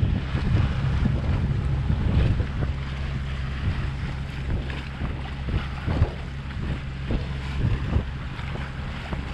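Wind gusting over the microphone on the deck of a sailboat under sail, with the wash of water along the hull.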